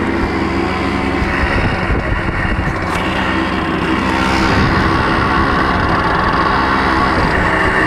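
Motorcycle engine running steadily on the move, with heavy wind buffeting on the microphone; it gets a little louder about halfway through.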